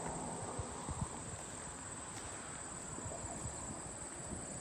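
Steady high-pitched insect trill, like crickets, with scattered soft low thumps of handling or footsteps, the loudest about a second in.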